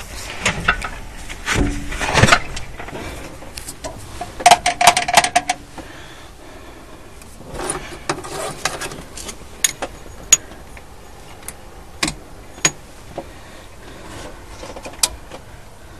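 Keys jangling and the controls of an Ursus C-330 tractor clicking and rattling as they are handled, with a short squeak about five seconds in. The engine is not yet running.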